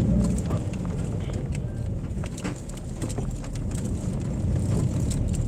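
Car running at low speed, heard from inside the cabin: a steady low engine and road rumble with scattered light clicks.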